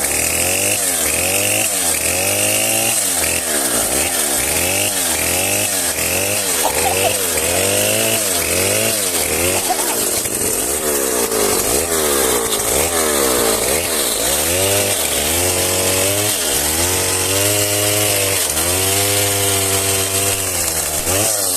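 Chainsaw running under load, its engine pitch dipping and rising again over and over, about once or twice a second.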